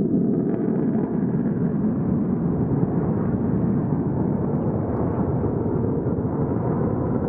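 Fighter jet engine running at takeoff power on its takeoff roll, heard from a distance as a steady low rumble.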